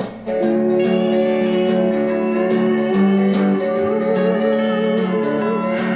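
Instrumental guitar music coming in sharply just after the start, with held chords under a wavering, sliding lead line in the style of a slide guitar.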